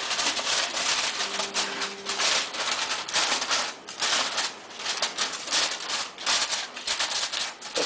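Aluminium foil crinkling and crackling as it is pressed and crimped tight around the rim of a baking dish to seal it, in an irregular run of small crackles.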